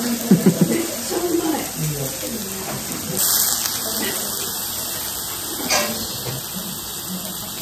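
Venison and vegetables sizzling on a hot cast-iron griddle, a steady hiss throughout. A voice speaks briefly in the first two seconds, and there is a single light click near six seconds in as chopsticks touch the sauce dish.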